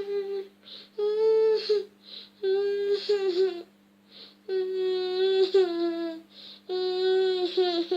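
A voice humming a slow, lullaby-like tune in long, steady held notes, five phrases with short breaks between them, soothing a crying baby.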